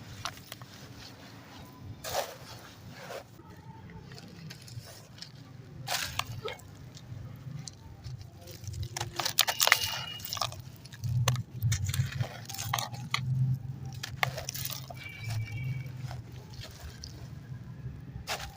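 Crumbling concrete and charcoal ash being crushed and broken in the hands: irregular crunches and clicks, with a steady low rumble underneath.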